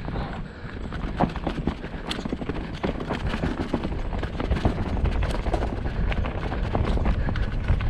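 Mountain bike ridden down a stony dirt singletrack: tyres rolling over roots and rocks while the bike rattles in quick, irregular clicks and knocks, over a steady low rumble of wind on the bike-mounted camera.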